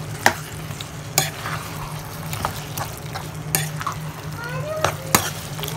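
A spoon stirring thick lemon pickle in a pan. There are a few sharp clinks of the spoon against the pan over a soft, wet churning of the masala-coated lemon pieces.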